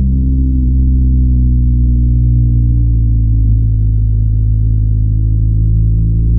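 BMW R1250GS boxer twin on its stock exhaust, running steadily while riding, with a deep, muffled engine note whose pitch eases slightly down around the middle.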